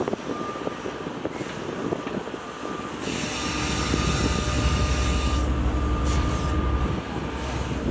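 Case CX130D long reach excavator's diesel engine and hydraulics working as it digs, with a few knocks early on. About three seconds in, the engine comes under load with a deep rumble and a hiss as the arm swings the bucket up out of the trench. The rumble eases near the end.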